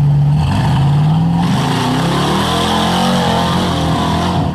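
Rock-crawler buggy's engine revving hard under load as it climbs a steep mud bank, its pitch rising over the first second and a half and then held high and wavering.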